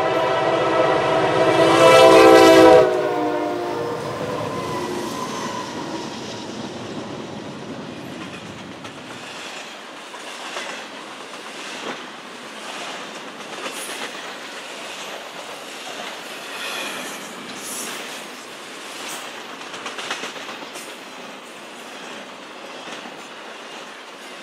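Diesel freight locomotive's air horn sounding a chord close by, then cutting off abruptly about three seconds in as the locomotive passes. The engine rumble fades over the next few seconds, and the freight cars roll past with wheels clicking over the rail joints.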